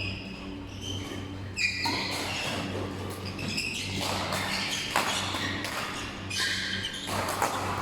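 Basketball game on an indoor court: short sneaker squeaks on the floor and a few sharp thuds of the ball. A steady low hum from the hall runs underneath.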